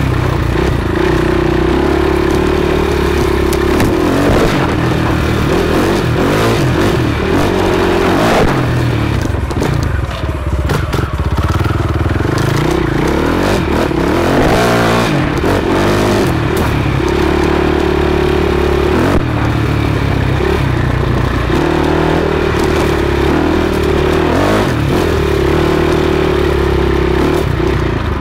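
Enduro motorcycle engine under load on a dirt trail, the throttle opened and closed over and over: the engine note holds steady for a few seconds, drops away, and picks up again several times, with one sweep down and up in pitch about halfway through.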